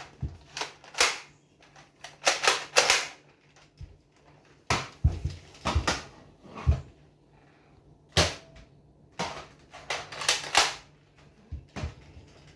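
Toy Nerf blaster being handled and worked, giving a string of sharp plastic clicks and clacks in irregular clusters.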